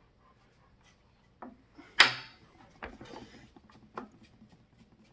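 Hand-cranked boat winch being wound to tension a kite line on a wooden test board: a loud knock about two seconds in, then a run of fainter clicks and knocks.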